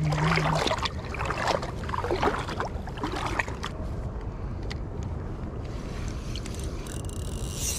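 Water splashing and lapping around an inflatable float tube at sea, with irregular crackly splashes and handling knocks over the first few seconds, then a steadier quiet wash and a brief hiss near the end.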